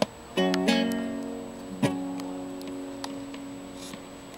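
Slack-key acoustic guitar playing a final chord, one note sliding up into it, then left ringing and slowly fading out; a single knock about two seconds in.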